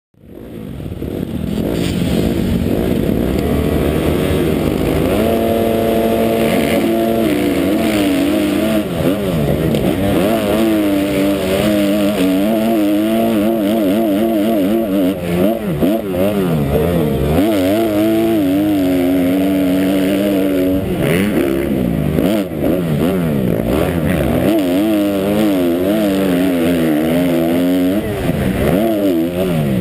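Motocross bike engine heard close up from the rider's helmet camera during a race, revving continuously up and down with throttle and gear changes. About five seconds in, the pitch holds steady for a couple of seconds before it climbs and falls again.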